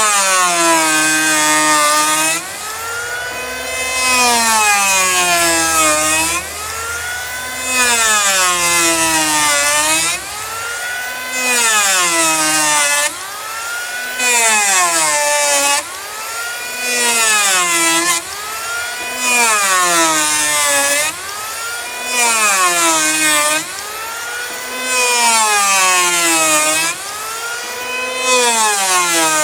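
Handheld electric power planer making repeated passes over a hickory slab, about nine in all. On each pass the motor's whine drops in pitch under load while the cutter gives about two seconds of loud hiss, then the whine climbs back as the planer is drawn back for the next pass.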